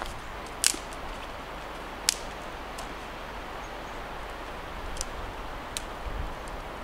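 Sharp wooden clicks and knocks of sticks and split wood being handled and laid on a fire pit, the two loudest about a second and a half apart near the start and a few fainter ones later, over a steady background hiss.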